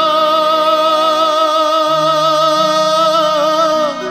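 Odia devotional song: a singer holds one long wavering note over a steady instrumental drone. The note ends near the end, and the accompaniment carries on more quietly.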